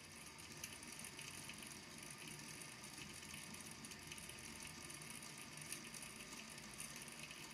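Small balls in a volcano lamp's water tank tapping on the tank's base as they are pushed up and sink back, a faint, steady patter of many small clicks.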